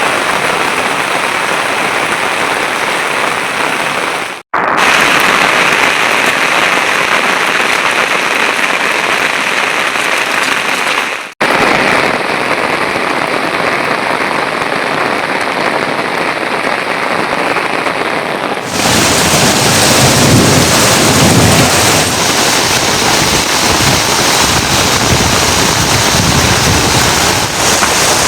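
Steady rain falling, an even hiss that cuts out for an instant twice. About two-thirds of the way through it switches abruptly to a fuller, deeper rushing noise with more low rumble.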